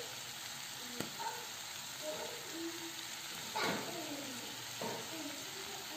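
Turkey pieces, zucchini and mushrooms sizzling steadily in a hot non-stick frying pan. There is a faint tick about a second in and a louder short crackle about three and a half seconds in.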